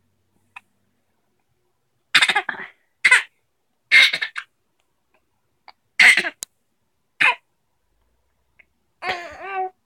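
Short breathy vocal bursts, five of them roughly a second apart, like huffs of laughter or coughs. Near the end comes a brief voiced sound whose pitch wavers.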